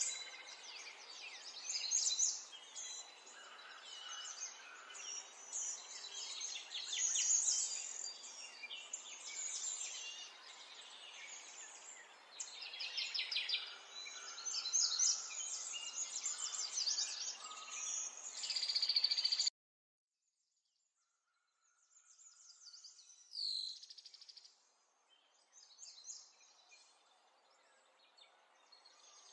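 Small birds chirping and twittering in a dense, high-pitched chorus. It cuts off suddenly about two-thirds of the way through, and after a short silence only a few fainter chirps remain.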